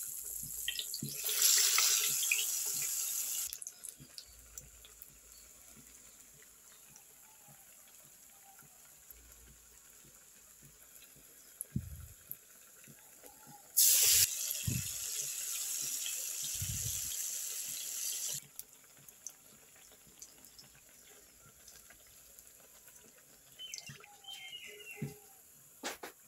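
Falafel patties deep-frying in hot oil in a metal wok: the oil sizzles in two loud stretches, about a second in and again from about 14 s to 18 s, with only a faint sizzle between. A few light clicks near the end.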